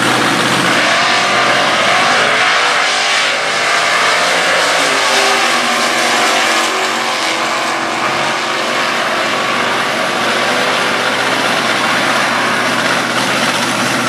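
Stock Eliminator drag cars launching at full throttle and accelerating down the strip, the engine note climbing steadily in pitch for several seconds after the launch.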